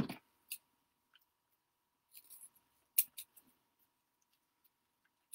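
Scissors snipping ribbon: a few short, sparse snips and clicks, the sharpest about three seconds in.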